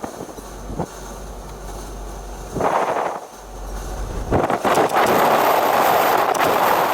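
Strong wind buffeting the microphone in gusts, building about four seconds in to a steady roar.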